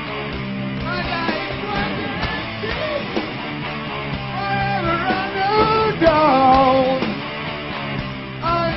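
Rock song with electric guitar, bass and a singing voice.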